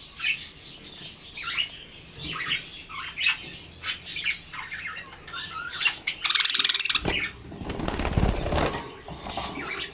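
Budgerigars chirping in many short calls. A louder buzzy call comes just past the middle, followed by a flurry of wing-flapping lasting about two seconds.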